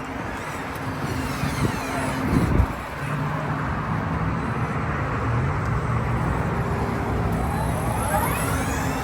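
Motor vehicle engine running steadily nearby, with a thump about two and a half seconds in and whines that rise and fall in pitch near the end.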